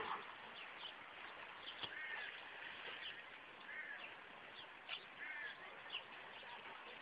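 Birds calling faintly: a short arched call repeated about every second and a half, with thin, quick falling chirps between, over a steady background hiss.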